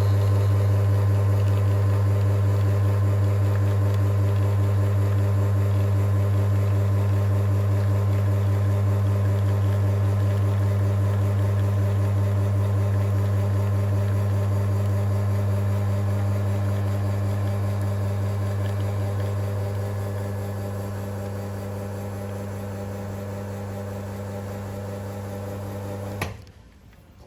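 Espresso machine's pump humming steadily through a shot, a little quieter in its last few seconds, then switching off with a click.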